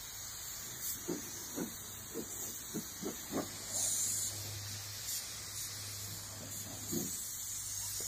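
Gravity-feed air spray gun hissing as compressed air atomises coating onto a car chassis floor pan, swelling briefly about four seconds in. A few short soft knocks sound underneath.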